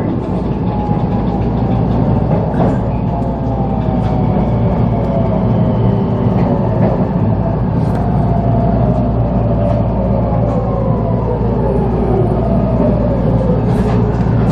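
Local electric train heard from inside, slowing into a station: a steady rumble of wheels and running gear, with the motor whine falling in pitch as it brakes.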